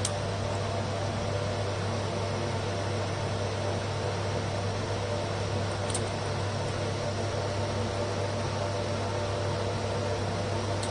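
Steady fan-like hiss with an electrical hum underneath, unchanging throughout. A single short click about six seconds in.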